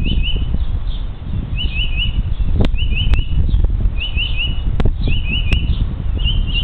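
A songbird singing short phrases of three or four quick rising notes, repeated about once a second. Under it runs a loud low rumble, with a few sharp clicks.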